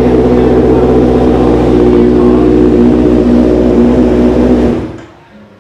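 Kawasaki inline-four motorcycle engine idling steadily through an aftermarket SC-Project full exhaust system, then cutting off about five seconds in.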